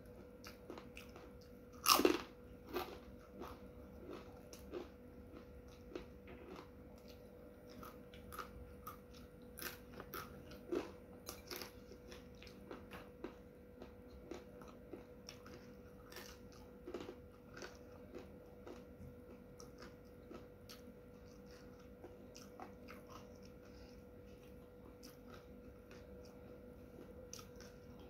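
Crisp keripik chips being bitten and chewed close to the microphone: a run of irregular crunches, the loudest about two seconds in.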